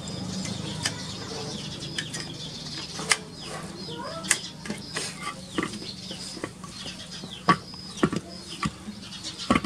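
Sharp plastic clicks and knocks as a plug and power strip are handled beside a submersible pump, with small birds chirping in quick falling calls between them. The pump itself is not running.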